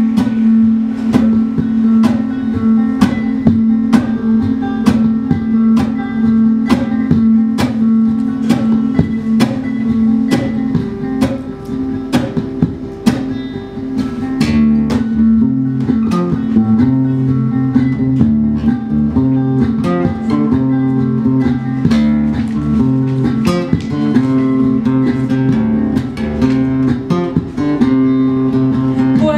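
Acoustic guitar played without singing, strummed in a steady rhythm of about two strokes a second.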